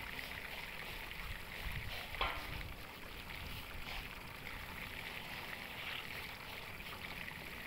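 Paintbrush loaded with oil paint scrubbing back and forth over rough concrete, a scratchy swishing of bristles, with one brief sharper knock about two seconds in.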